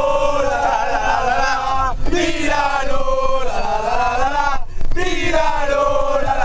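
A group of male football supporters chanting a team song in unison, held sung phrases with short breaks between them, inside a coach.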